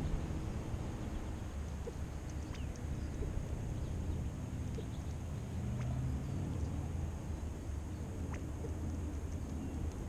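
Outdoor backyard ambience: a steady low rumble with a few faint, short, high bird chirps scattered through it.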